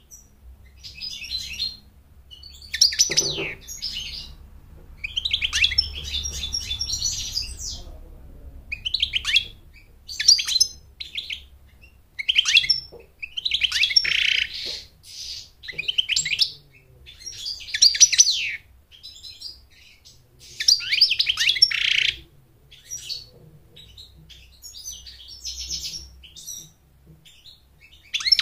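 European goldfinch singing: about a dozen bursts of rapid, high, twittering song, each a second or two long, with short pauses between them.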